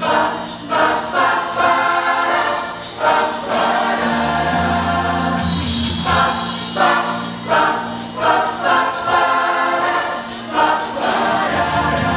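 School choir singing with instrumental accompaniment: the voices sing in short phrases over held bass notes that change pitch about four seconds in and again near the end.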